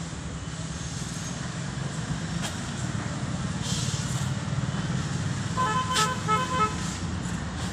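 Steady rumble of road traffic, with a vehicle horn honking in a quick series of short toots about six seconds in, the loudest sound here. A brief hiss comes about four seconds in.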